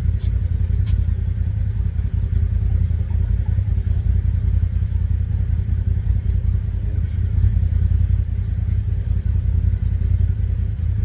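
Polaris RZR Pro S4 turbo engine idling steadily, run for a few minutes after an oil change to push fresh oil through the new filter. A couple of small clicks in the first second.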